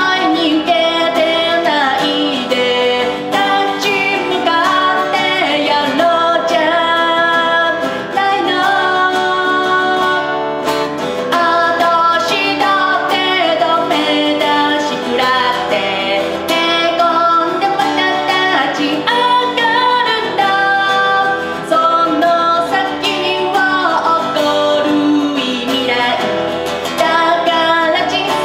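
A woman singing while strumming an acoustic guitar, a solo guitar-and-voice song.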